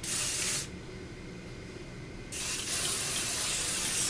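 Cibu Pho Finish hair spray being sprayed onto hair in hissing bursts: a short spray at the start, then a longer one of about two seconds from a little past two seconds in.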